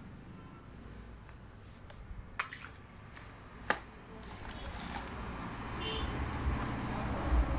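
Handling of a mains power cord and its plastic plugs: two sharp plastic clicks a second or so apart, with a few fainter ticks. A low rumble grows louder over the last couple of seconds.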